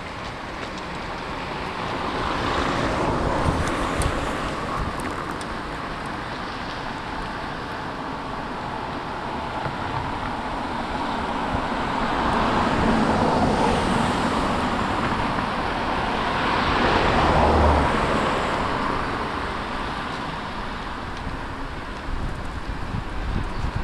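Cars passing along a street, three of them, each a swell of tyre and engine noise that rises and fades.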